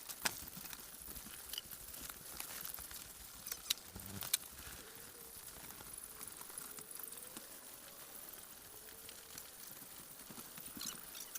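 Chickens shuffling and scratching about in their shipping boxes, with light pattering and a few sharp knocks in the first half.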